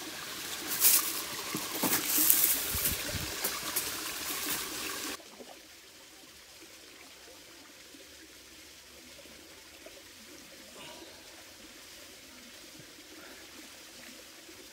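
Hot spring water trickling into a small pool in the reeds, close to the microphone, with crackles of dry reed stalks. After about five seconds it cuts off suddenly to faint, steady outdoor background.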